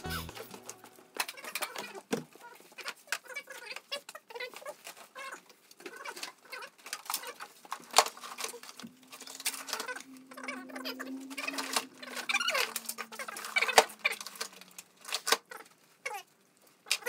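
Scattered clicks, light rattles and scraping of hands handling parts and tools in a car's engine bay during reassembly. Two sharper clicks stand out, about eight and fourteen seconds in.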